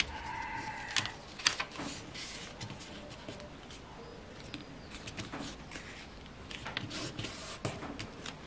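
A sheet of A4 paper rustling and crackling as hands fold and crease it into a paper airplane, with irregular sharp crinkles, the loudest about a second in. A brief pitched animal call sounds in the background during the first second.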